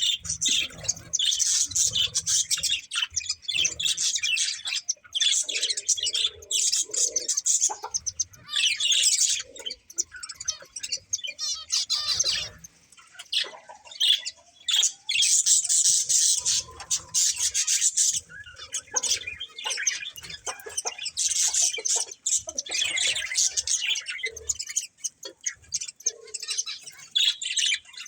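A pair of budgerigars chirping and warbling in fast, continuous chatter, broken by a few short lulls.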